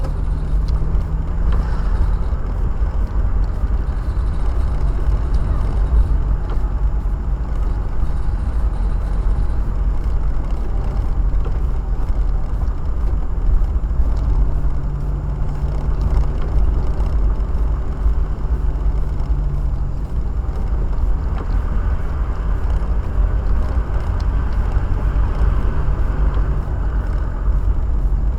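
Inside a moving car's cabin in heavy rain: a steady low rumble of engine and road noise, with the hiss of rain and wet tyres swelling at times and an engine hum coming in about halfway through.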